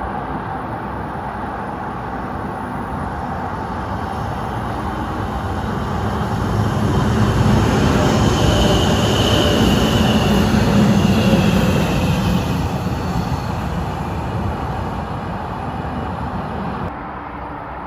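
Daegu Metro Line 1 electric train passing: its running noise builds as it approaches, is loudest as it goes by with a faint high whine, then fades away. The sound drops suddenly near the end.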